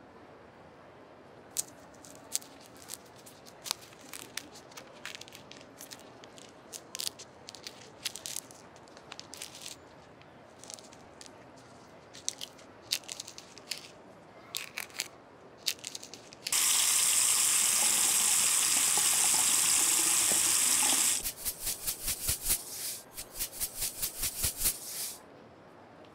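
Small clicks and taps as grapes are pulled from their stems and handled over a metal mesh strainer, then tap water runs over them for about four seconds, followed by about four seconds of quick, even splashing pulses.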